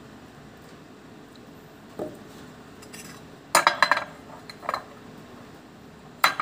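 A copper coin clinking and scraping against a small glass bowl of water as it is dipped and moved around in it: a quick run of clinks about three and a half seconds in, a couple more shortly after, and one sharp clink near the end.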